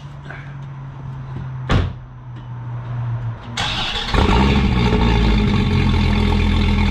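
A car door shuts with a single loud knock, then the Dodge Viper ACR's 8.4-litre V10 cranks and fires about three and a half seconds in, settling straight into a loud, steady run through its stock resonator exhaust.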